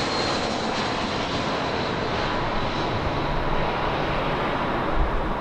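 Airliner jet engines passing close by: a steady, loud rush of engine noise with a faint high whine that fades over the first few seconds.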